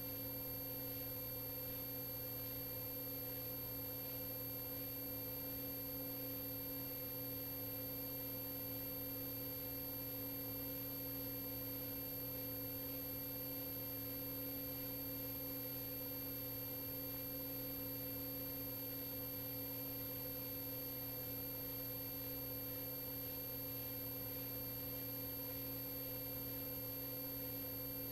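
A steady hum made of several fixed tones, low and mid-pitched with a faint high whine, that does not change at all.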